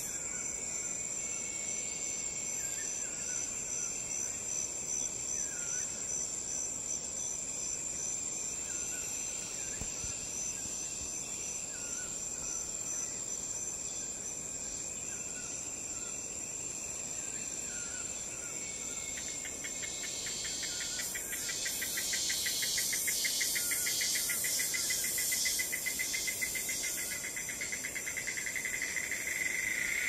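Rainforest insect chorus: a steady high-pitched insect tone with short chirps repeating every second or two. About two-thirds of the way in, a rapid pulsing trill joins and grows louder toward the end.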